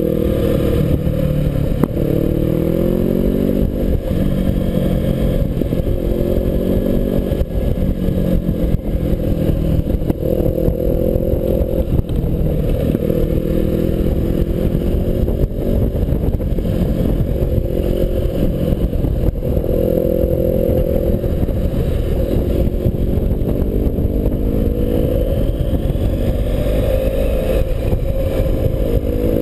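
BMW 650GS motorcycle engine under way on a winding road, its pitch rising and falling again and again as the bike accelerates out of bends and eases off into them. Steady wind rush on the bike-mounted camera runs under it.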